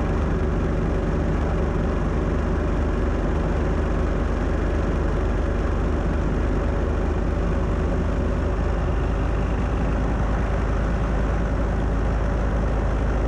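Ford LGT 165 garden tractor engine running steadily under load, driving a two-stage snowblower through deep snow.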